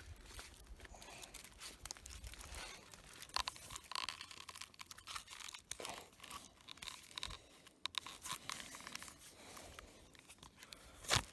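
Irregular rustling, crackling and small cracks of a belt being looped and tied around a wooden pole among dry forest litter, with one sharper crack near the end.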